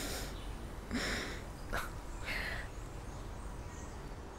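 Soft breaths and clothing rustle as two people hug: a few short, quiet sounds over a faint steady background.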